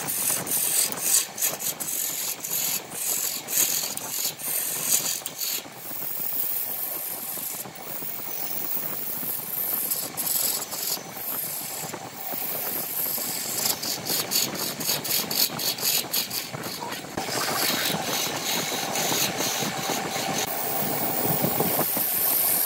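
Wood lathe spinning a cup blank while a hand-held gouge cuts into it: a scraping hiss from the tool on the wood, broken by many short clicks. From about two-thirds of the way through the cutting turns steadier and denser.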